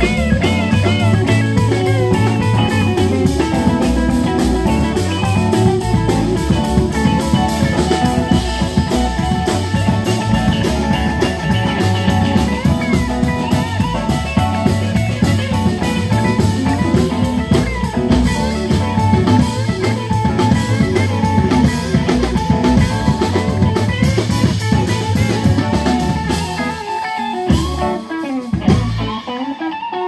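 Live blues-rock band playing an instrumental stretch: two electric guitars over upright bass and drum kit, with no singing. The bass drops out near the end.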